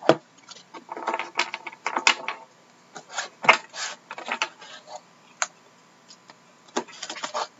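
Cardboard card boxes and foil pack wrappers being handled on a wooden table: crinkling and rustling with sharp knocks and taps. Near the end, a pointed tool scratches at the plastic wrap of a sealed Upper Deck Artifacts box.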